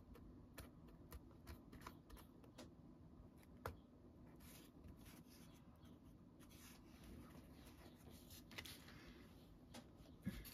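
Faint paper-craft handling: light taps, clicks and rustles of paper and card being handled by hand, with one sharper tap a little under four seconds in.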